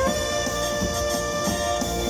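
Live instrumental music from a funeral band playing a slow melody, with a long note held through the passage.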